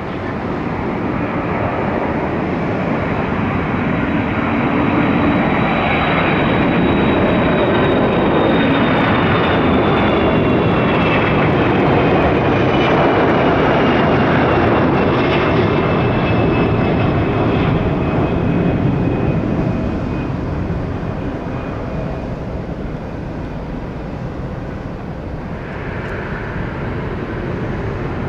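Boeing KC-135 Stratotanker's four turbofan engines at takeoff power: the roar builds as it rolls and lifts off, with a high fan whine that slides down in pitch as it passes, then the roar fades.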